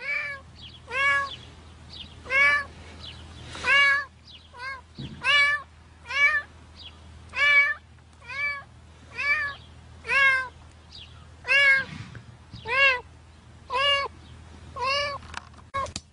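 Cat trapped up to its head in set concrete inside a pipe, meowing over and over, about one meow a second, each call rising then falling in pitch. A low steady hum runs underneath.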